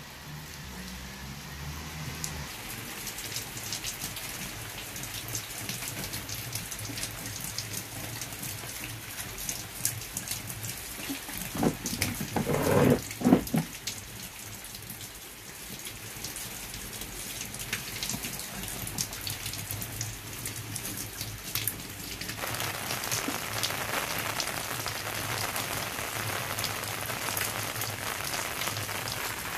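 Steady rain falling, countless raindrops ticking on wet ground, puddles and leaves. It grows fuller and a little louder about three-quarters of the way through. A short cluster of loud thuds comes near the middle.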